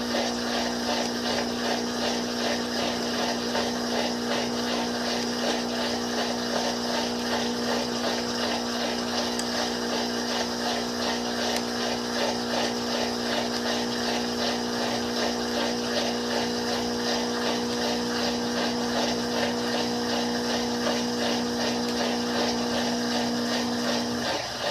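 Washing machine drain pump running with a steady hum as it pumps out water, the water gurgling through it. The hum cuts off suddenly near the end.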